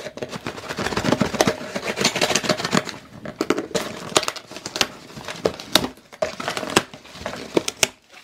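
Packaging crinkling and rustling in irregular bursts as a package is unwrapped by hand, easing off near the end.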